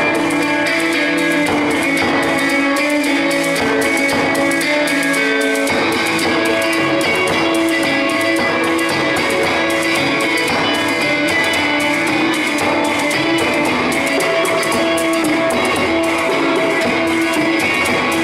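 Live improvised music: an electric guitar played through a valve amp, holding sustained notes, over quick, steady drumming on rope-tuned African barrel drums struck with sticks.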